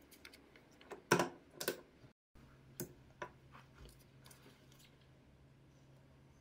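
Stiff alligator-leather pieces handled on a granite slab: a few short, sharp taps and rustles as pieces are picked up and set down, the loudest about a second in. After a brief dropout near the two-second mark a faint, steady low hum runs underneath.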